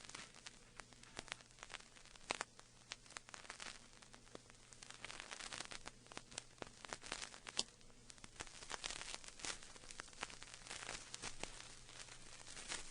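Faint irregular crackling and clicking over a low steady hum.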